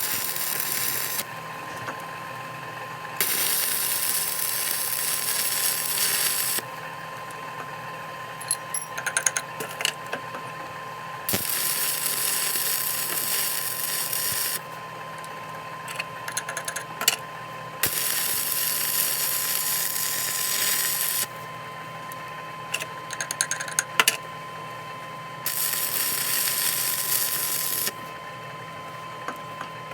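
A metalworking power tool on steel, running in bursts of about three seconds with pauses between them, about five times. Small clicks and taps fill the pauses, and a steady machine hum runs underneath.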